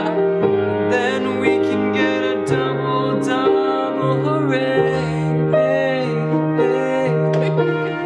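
A soft song played on piano with a singing voice and no clear words; the notes change every second or so.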